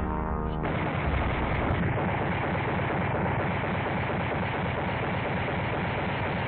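Trumpet-led brass music breaks off about half a second in. A long, dense, unbroken rattle of rapid automatic gunfire from a machine gun follows.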